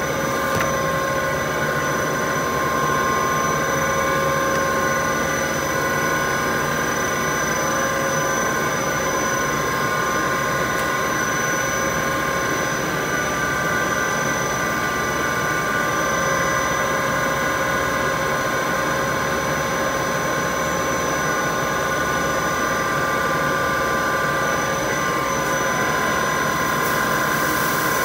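HDPE pipe extrusion line machinery running steadily: a constant mechanical drone with several steady whining tones over it.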